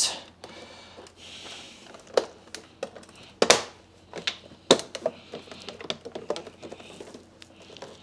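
Hard plastic clicks, knocks and light scraping as the nozzle hood of a Royal 7300 upright vacuum is pressed and worked onto its base, catching on a bumper that is slightly out of place. A handful of sharp knocks, the loudest about three and a half seconds in.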